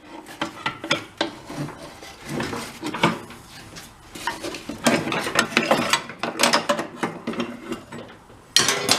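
Hand ratchet wrench clicking in uneven bursts while a stubborn bolt on a small engine is worked loose, with metal tools clinking.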